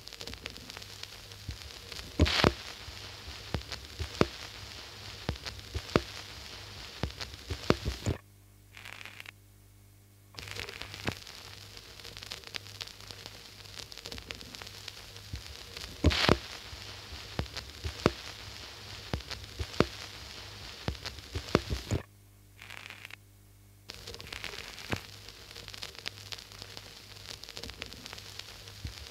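Steady crackling static with scattered sharp pops over a low hum. It drops out twice for about two seconds, and the same pattern repeats about every fourteen seconds, as a looped sound track would.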